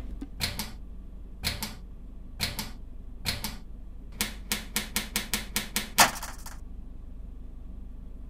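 Gas stove's burner knob being turned and its igniter clicking: a few spaced clicks, then a quick run of them, ending in one louder click with a brief rush of noise.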